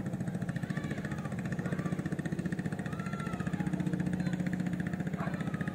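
Small boat engine running steadily with a fast, even putter.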